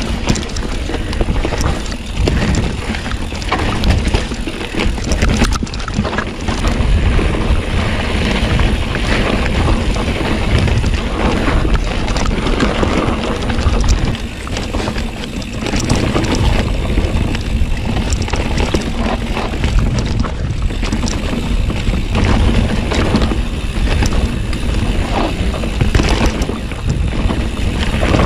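Polygon Siskiu T8 full-suspension mountain bike ridden fast down a dirt trail: tyres rolling over dirt and the bike rattling and knocking over bumps, with wind on the microphone. The sound dips briefly about halfway through, then carries on.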